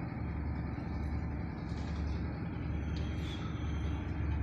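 Steady low machine hum, with a few faint higher clinks now and then.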